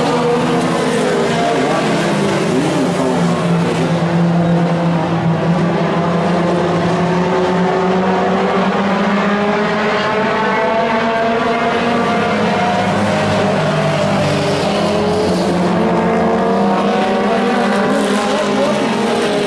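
Several Pro 4 race trucks' engines running hard around a paved oval, a loud steady mix of overlapping engine notes whose pitches rise and fall as the trucks go round.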